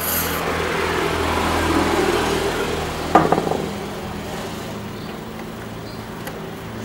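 A short hiss of aerosol cleaner spray at the start, then a motor vehicle engine running, swelling to its loudest about two seconds in and fading off. A sharp knock sounds about three seconds in.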